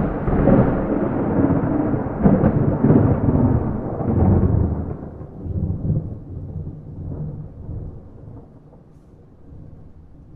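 A thunderclap without rain: it starts suddenly with crackling, rumbles loudly for about five seconds, then slowly dies away into a faint, low rolling rumble.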